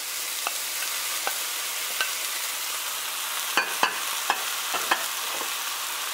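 Chicken, onion and sliced sausage sizzling in a frying pan, with a steady hiss. Scattered clicks and taps come as the sausage pieces go in and are pushed around in the pan, most of them in the second half.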